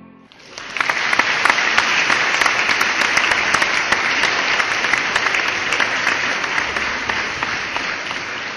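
A crowd applauding, many hands clapping together; it swells up within the first second and eases off slightly near the end.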